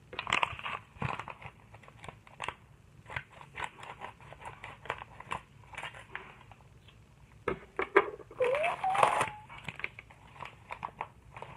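Padded paper mailer envelope crackling and crinkling in the hands as it is torn open. There is a longer, louder tear with a rising squeak about eight seconds in.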